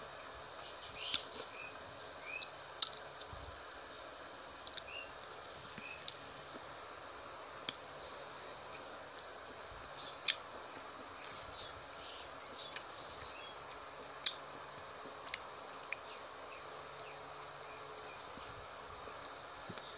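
Close-up eating sounds of a mouthful of rice and fish curry eaten by hand: irregular sharp wet mouth clicks and lip smacks while chewing, over a steady faint hiss.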